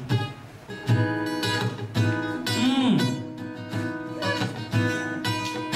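Acoustic guitar strummed slowly, each chord ringing out with a fresh strum about once a second, playing a mood-setting accompaniment.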